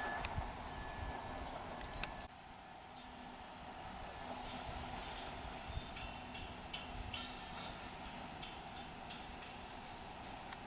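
Steady high-pitched shrilling of insects in summer, continuing unchanged through a cut about two seconds in, with a few faint short high chirps in the middle.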